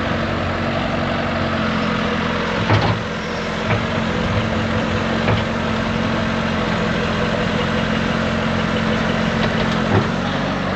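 Loader engine running steadily while scooping tightly compacted silage, with a few clunks about three seconds in and again near the end.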